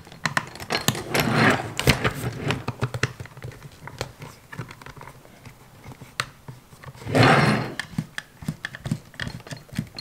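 A hex key screwing a bolt down into the plastic Rotax battery box cover: irregular light clicks and taps of the tool and the plastic parts, with brief scraping rustles about a second in and again around seven seconds in.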